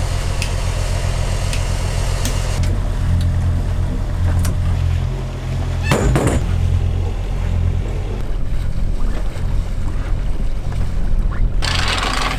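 A sailboat's inboard diesel engine running steadily with a low, pulsing hum, under the wash of water and wind. A sharp knock comes about six seconds in, and near the end the sound shifts to a brighter rush of water and wind.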